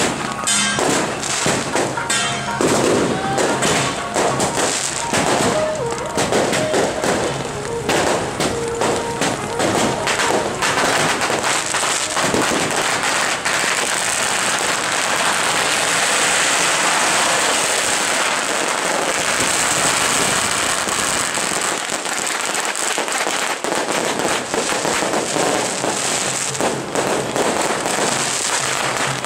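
Strings of firecrackers going off in a long, rapid, dense crackle.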